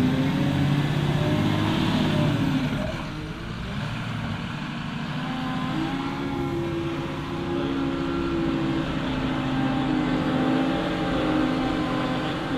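Claas Torion 1511P wheel loader's diesel engine working under load: it runs at higher revs for the first three seconds or so, then the revs drop and it runs steadier with a faint whine.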